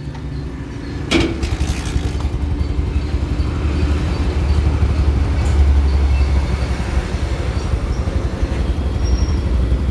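Kawasaki Barako motorcycle's single-cylinder engine running at idle with no throttle, just after a cold kick-start, its idle left to settle down. A sharp knock sounds about a second in.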